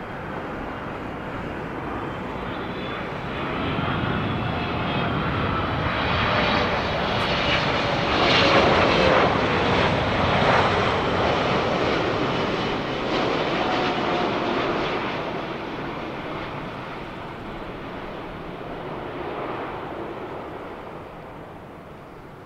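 Boeing 777F freighter's twin GE90 turbofan engines passing low on final approach: a jet roar that swells to its loudest about nine seconds in, with whining tones that drop in pitch as the aircraft goes by, then fades away.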